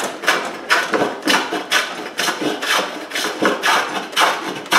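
Hand plane taking quick repeated strokes across a rough-sawn walnut board, about two a second, shaving off the rough surface.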